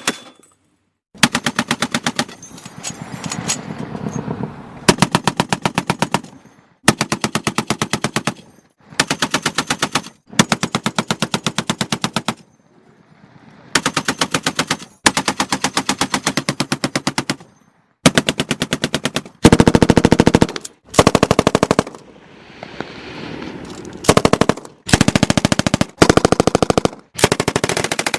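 Automatic gunfire in repeated rapid bursts, each lasting a second or two, with short pauses between them.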